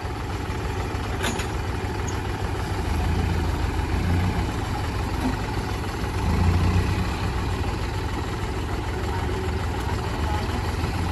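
Mahindra tractor diesel engine running steadily at idle, a low hum whose note swells briefly twice.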